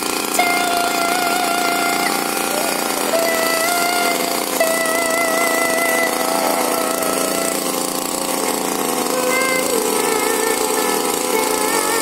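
Two-stroke engine of a backpack brush cutter running at high speed while cutting grass, its whine wavering as the load changes and sagging lower about ten seconds in.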